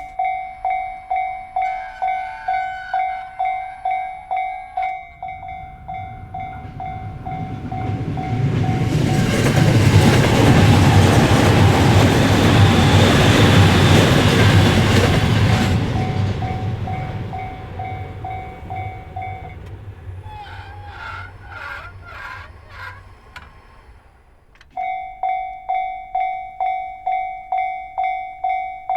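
Japanese railway level-crossing alarm bell ringing in a steady repeating ding, about two and a half strokes a second. A JR Narita Line train then passes for about ten seconds, its rumble and rail noise swamping the bell, which stops soon after. A few clicks and rattles follow, then the bell starts ringing again near the end.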